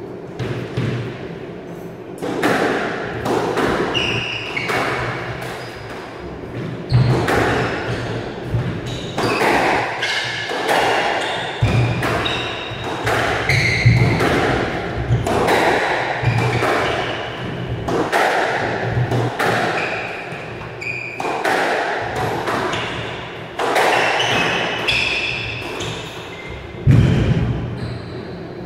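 Squash rally: the rubber ball struck hard by the rackets and slamming into the court walls, a sharp echoing knock every second or so.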